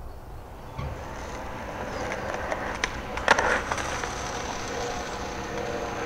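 Skateboard wheels rolling on concrete, with one sharp, loud clatter about three seconds in as the rider falls to the pavement.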